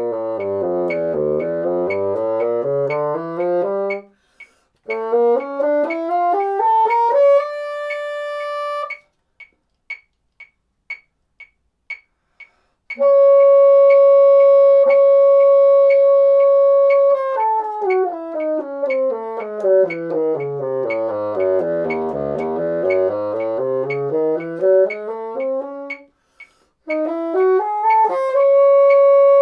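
Bassoon playing harmonic minor scales over a metronome ticking about twice a second. It plays quick runs down into the low register and back up, with runs climbing to long held high notes. For a few seconds in the middle only the metronome ticks.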